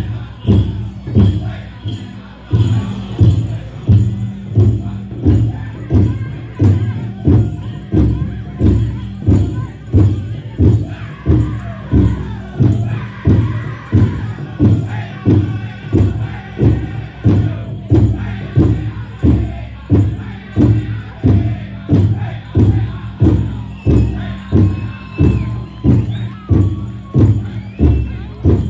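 Powwow drum group: a big drum struck together in a steady, even beat, with the singers' high voices carrying over it as the dance song goes on.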